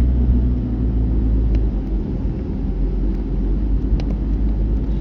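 Steady low rumble of a car driving, heard from inside the cabin: tyre and road noise with the engine underneath, and a couple of faint ticks.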